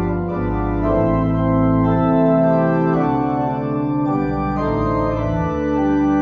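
Organ playing slow, sustained chords that change every second or so: postlude music after the dismissal.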